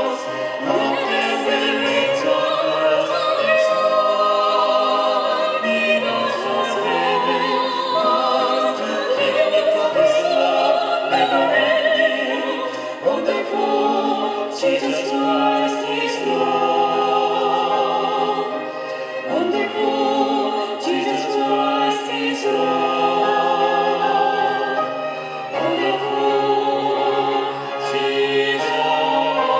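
Classical-style vocal solo with orchestral accompaniment, sung in an operatic manner with held notes and vibrato.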